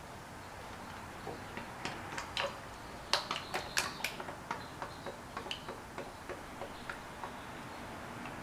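A bottle of engine oil pouring into the engine's oil filler, heard as a run of light, irregular clicks and glugs. They come thickest and loudest about three to four seconds in, then space out and fade.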